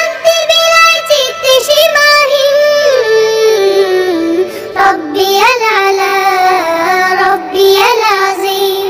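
A solo voice singing a Bangla Islamic ghazal, holding long, wavering notes with ornamented turns in the melody.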